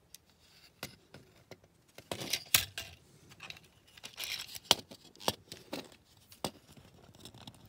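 Hard plastic clicks, clatters and rubbing as a 1970 Mattel Hot Wheels Hotline toy ore car is turned over in the hand and its tilting dump bin is moved, with the sharpest clicks a little over two seconds in.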